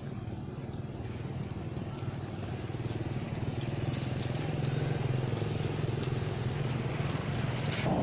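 An engine running steadily with a low hum, slowly growing louder.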